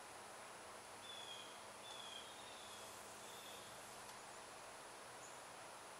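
A bird calling faintly: three short, high, level notes about a second apart, over a steady outdoor hiss.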